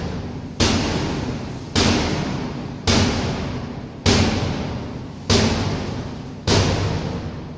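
A large drum beaten at a steady pace, about one heavy beat every second or so, each beat ringing out before the next. It keeps time for a drill.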